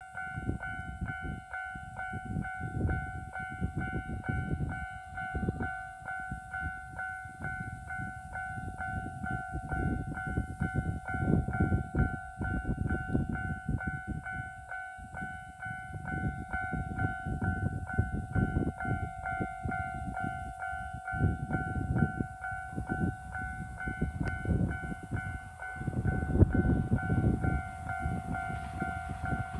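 Japanese railway level-crossing warning bell ringing steadily at about two strikes a second, the signal that a train is approaching, over an irregular low rumble.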